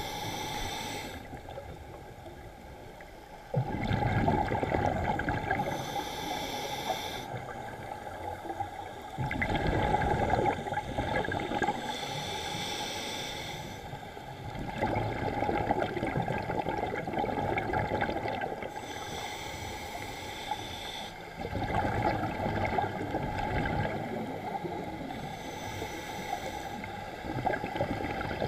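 Scuba regulator breathing heard underwater: a rushing, gurgling burst of bubbles on each exhale, a few seconds long, alternating with a short high hiss on each inhale, repeating about every six seconds.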